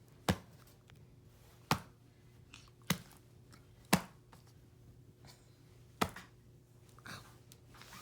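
Five sharp clicks or slaps at irregular intervals over a faint, steady low hum, with a softer rustle near the end.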